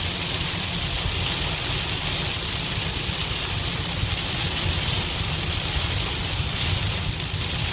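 Heavy rain pelting a car steadily while it is driven through a downpour, heard from inside the car, with a low road rumble underneath.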